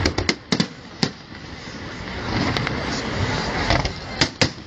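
Fireworks display: a quick cluster of sharp bangs in the first second and two more near the end. Under them runs a steady background of crowd noise with some voices.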